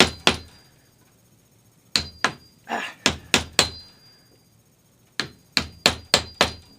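Hammer blows tapping the spline into the groove of a cane chair seat, in three quick runs of sharp knocks with a short metallic ring.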